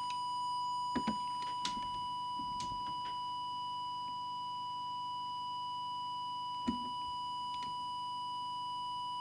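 Steady, unchanging test tone from a small audio oscillator, fed in to check the CB transmitter's FM deviation. A few light clicks and knocks of handling fall over it, the sharpest about two-thirds of the way through.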